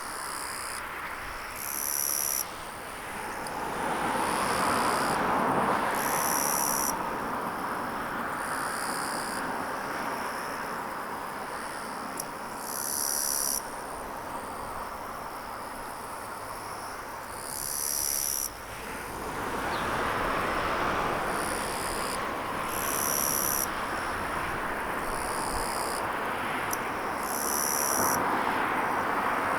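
Insects chirping in short, high-pitched bursts repeated every couple of seconds, over a steady outdoor rushing noise that swells twice.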